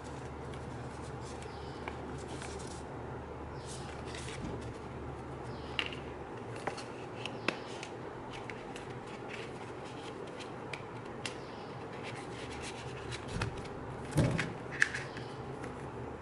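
Paper booklets and card sleeves from a phone box being handled and shuffled: light rustles and small scattered clicks, with a louder knock and a sharp click near the end, over a steady low hum.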